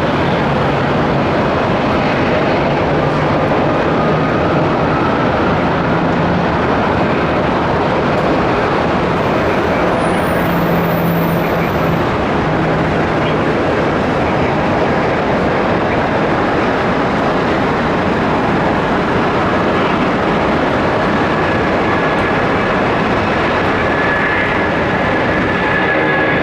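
Jet aircraft engines at take-off power: a loud, steady roar with a low hum underneath, and a thin high whine coming in near the end.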